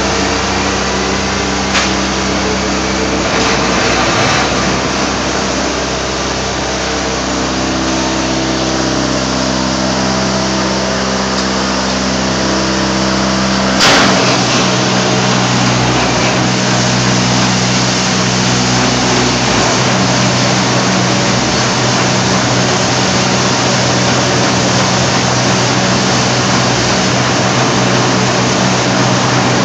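Heecon rockwool transporter running steadily as it pulls out spent rockwool substrate: a steady machine hum with several pitched tones over a broad hiss. A sharp knock about halfway, after which the deepest part of the hum drops away.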